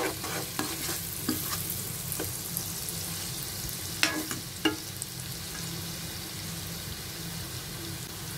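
Chopped onions and whole spices sizzling steadily in hot oil on a high flame, stirred with a spatula in a nonstick pan. The spatula knocks against the pan a few times in the first second or so and twice around four seconds in.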